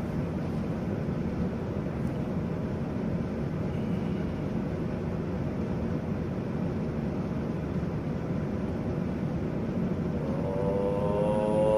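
Steady low background noise throughout. About ten and a half seconds in, a pitched tone with several overtones starts and slowly rises.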